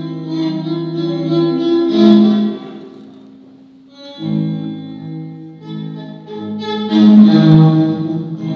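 Live guitar played through effects, long held notes ringing over one another with a bowed, string-like sustain. The notes fade almost to nothing about three seconds in, come back a second later and swell again near the end.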